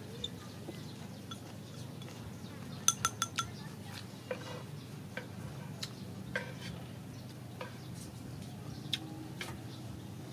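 Wooden chopsticks clicking and clinking against a ceramic bowl and a wok. There is a quick run of four sharp clinks about three seconds in, then scattered single taps, over a low steady hum.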